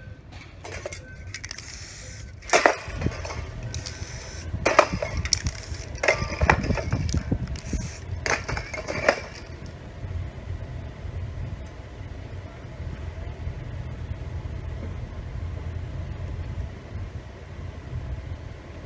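Aerosol spray-paint cans hissing in several short bursts, with a few sharp clicks or knocks among them, over the first half. After that only a steady low background rumble.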